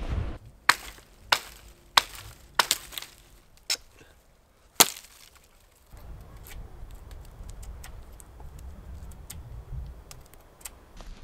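A run of sharp cracks or knocks, about six at uneven intervals over the first five seconds, then a steady low noise with a few faint ticks.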